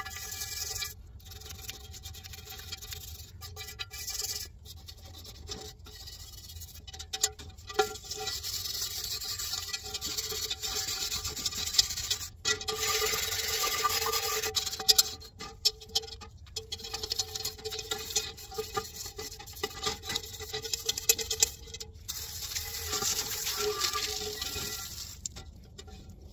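A wet Lodge No. 14 shallow cast-iron camp oven being scrubbed by hand: a rapid wet scratching and rubbing that comes and goes, broken by several abrupt short gaps.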